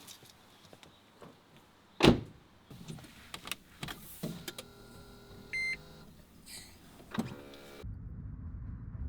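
A sharp thump about two seconds in, then a steady motor hum for about three and a half seconds with a short high beep partway through, cutting off suddenly into a steady low rumble.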